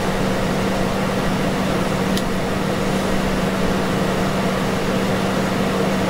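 Small electric space heater running with its heat on, its fan blowing steadily with a low hum.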